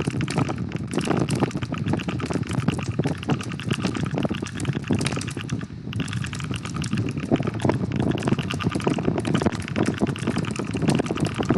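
Aula F75 mechanical keyboard being typed on very fast: a dense, unbroken stream of key clacks, with a brief pause about six seconds in.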